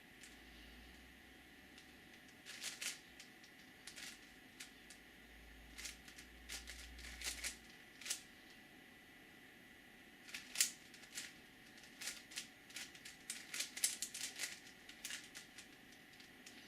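Plastic 5x5x5 Rubik's cube being turned by hand: irregular clicks and clacks of the layers snapping round, in quick clusters that grow busier in the second half.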